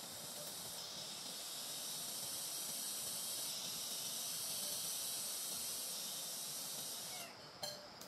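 Steady high-pitched hiss that drops away about seven seconds in, followed by a short click.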